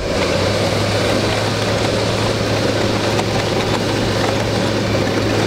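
Tractor-drawn seed drill at work in dry soil: a steady engine drone with a low hum under the even noise of the drill's coulters running through the ground.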